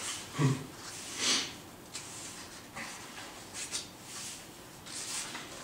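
Paperback book pages being leafed through close to the microphone: a handful of short papery rustles, irregularly spaced about a second apart.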